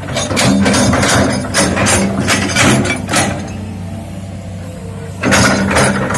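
Hitachi hydraulic excavator working, its diesel engine running steadily under a quick run of metallic clanks and knocks, which stop for about two seconds and start again near the end.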